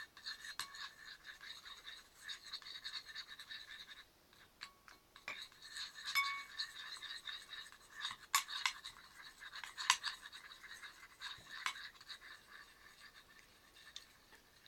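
Quiet, uneven scraping with a few sharp clicks and clinks while warm water is added to glue in a container for homemade slime.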